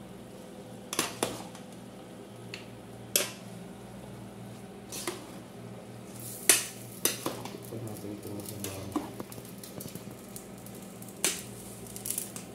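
A metal utensil knocking and scraping against a large aluminium pot as wet noodles and vegetables are lifted and tossed. The knocks are irregular, about one every second or two, and the sharpest comes about six and a half seconds in.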